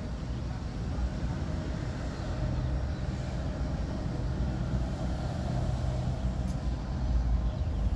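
Steady low mechanical rumble, like a running engine or motor, with no clear change.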